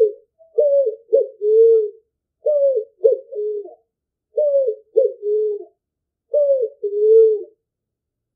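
Recorded song of a picazuro pigeon (asa-branca) played back as a hunting call: four phrases of three low coos each, about two seconds apart, each ending on a longer drawn-out note. A short click comes at the very start.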